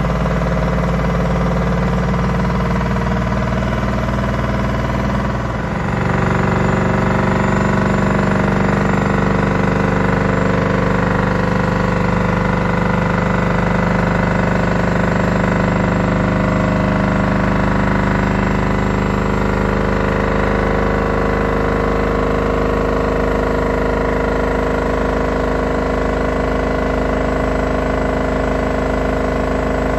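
Beko front-loading washing machine on its 1600 rpm spin, making a loud steady racket that the owner puts down to a loose concrete counterweight. The sound shifts and gets a little louder about six seconds in, then holds.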